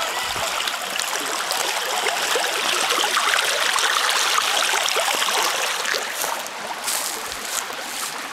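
Shallow stream running over rocks, a steady rushing trickle that swells slightly mid-way. Near the end a few short crunches come in as steps land on dry reeds and gravel.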